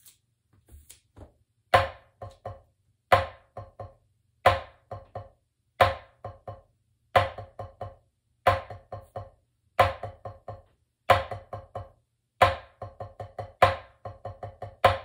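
Drumsticks on a drum practice pad playing the accented paradiddle-diddle exercise very slowly, starting about two seconds in. A loud accented stroke comes about every 1.3 seconds, each followed by a few quieter taps and double strokes. Near the end the quiet strokes come closer together.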